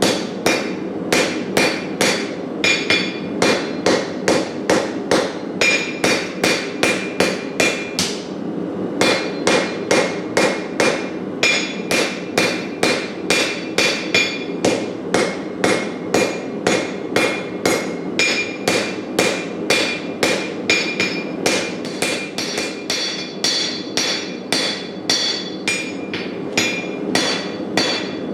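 Hammer blows on hot Damascus steel over an anvil, a steady run of about two to three ringing metallic strikes a second with one short break about eight seconds in, as the billet is forged toward a chef's knife shape.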